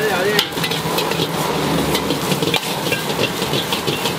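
Metal spatula knocking and scraping against a carbon-steel wok as pad Thai noodles and egg are stir-fried, with frequent short clanks over steady sizzling and the hiss of the gas burner.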